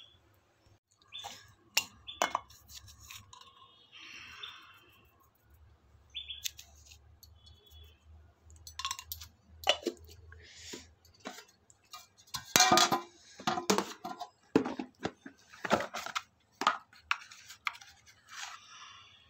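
Irregular clinks, taps and scrapes of a spoon and containers against a bowl as salt is put on pieces of raw fish and shrimp, busiest and loudest about two-thirds of the way through.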